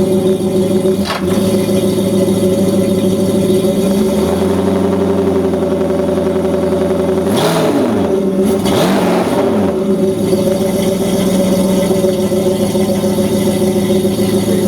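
Yamaha F350 5.3-litre V8 outboard running on a garden-hose flush, idling steadily, with its revs briefly raised and let fall twice around the middle.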